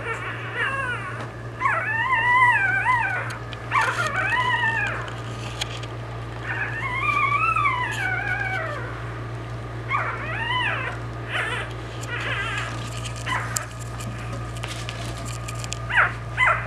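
Newborn American Bully puppies about a week old whining and squealing in a litter, a string of high cries that rise and fall in pitch, several of them drawn out for a second or more.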